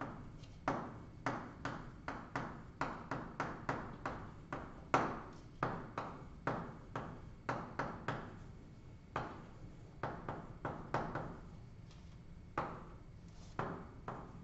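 Chalk tapping and scraping on a blackboard as words are written: an irregular run of sharp clicks, about two or three a second, each ringing briefly in the room.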